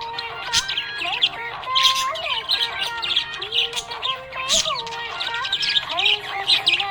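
Several budgerigars chirping and warbling, with rapid overlapping chirps and gliding notes throughout.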